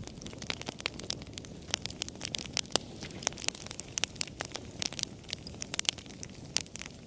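Wood fire burning in a fireplace: a low steady rumble of flames with frequent irregular sharp crackles and pops from the burning wood.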